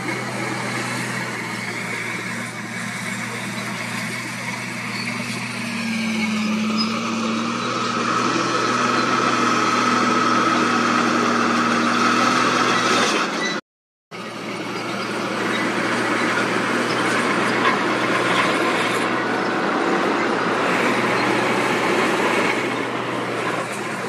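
Diesel engines of heavy earthmoving machines, dump trucks and a Komatsu D31P crawler bulldozer, running under load. A steady high whine sits over the engine noise for a few seconds before the sound cuts out for a moment just before the middle. Continuous engine noise follows as a dump truck raises its bed to tip soil.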